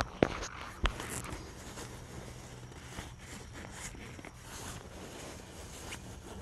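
Camera handling and rustling of bivvy shelter fabric: two sharp knocks in the first second, then soft, steady rustling with small scattered ticks.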